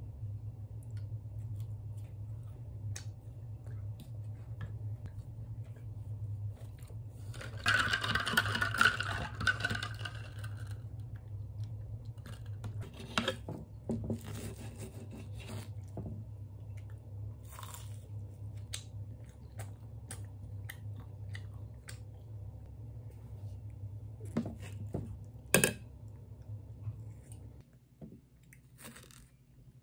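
Eating crispy croffles with ice cream: a knife and fork crunch through the crisp waffle crust, with chewing and cutlery clicking on a ceramic plate, and the loudest crunching comes about eight seconds in. A low steady hum runs underneath and stops shortly before the end.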